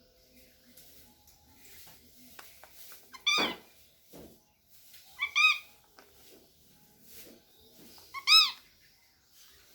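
Cockatiel calling: three loud, short pitched calls, each rising and falling, about three, five and eight seconds in, the middle one doubled.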